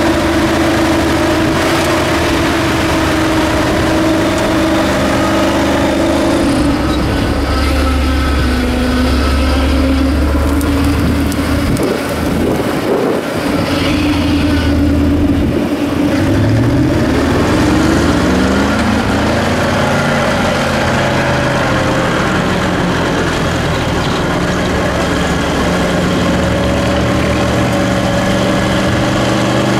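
Engine of a 6x6 ZIL 131 off-road trial truck running under load as it crawls over rough ground, its revs falling and rising, with a climb in pitch about two-thirds of the way through before it settles to a steady run.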